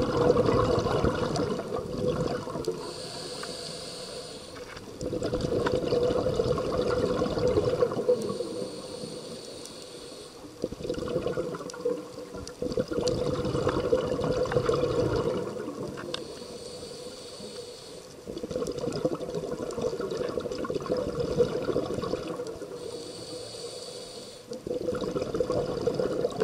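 Scuba diver breathing through a regulator underwater: a brief hissing inhale alternates with several seconds of bubbling exhaust, about four breaths in all.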